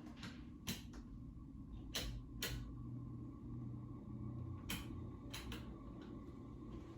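Ceiling fan running with a steady low hum, with about six short clicks or creaks at irregular spacing.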